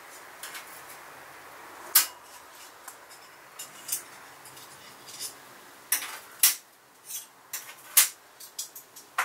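Small metal items and tools clinking and knocking on a workbench as they are handled: single sharp clinks at first, coming more often in the second half.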